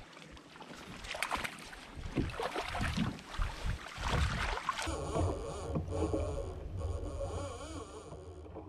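Small knocks, clicks and water sounds from a fishing kayak on a lake as rod and landing net are handled, with a steadier hiss over the last few seconds.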